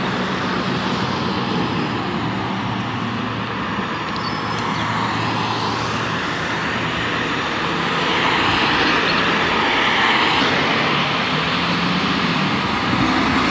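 Mercedes-Benz O500LE city bus's diesel engine approaching over steady road traffic noise, growing louder over the last few seconds.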